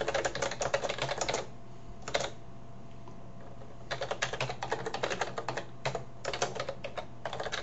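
Typing on a computer keyboard: quick runs of key clicks in bursts, with a pause of about a second and a half in the middle, over a low steady hum.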